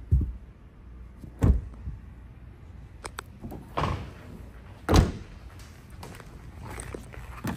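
A car's trunk being handled: a few knocks and thuds, then the trunk lid of a 2020 Ford Mustang GT pulled shut with a solid thump about five seconds in.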